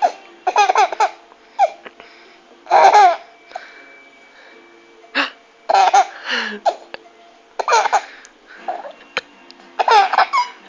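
Repeated fits of high-pitched laughter, five main bursts about two seconds apart with short squeaks between.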